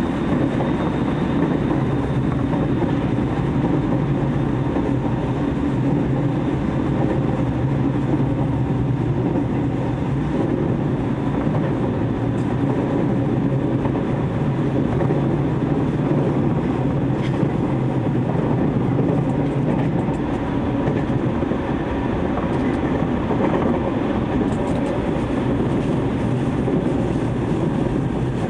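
Steady running noise of a JR East 209 series electric train heard from inside the car: the rumble of wheels on rail and the train's MT68 traction motors as it runs at speed, even throughout.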